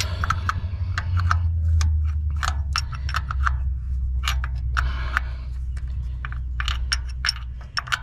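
Hand tools clinking and clicking irregularly against metal bolts and fittings while the oil filter housing and coolant line connections are tightened, over a steady low rumble.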